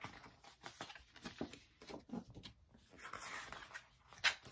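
Pages of a paperback picture book being opened and turned: irregular paper rustles and light taps, with a longer rustle about three seconds in and a sharper snap of a page near the end.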